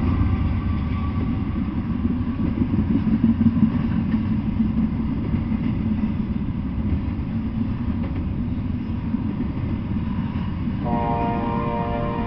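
Double-stack intermodal freight train rolling past on its well cars, a steady low rumble of wheels on rail; near the end a train horn starts sounding, a held chord of several notes.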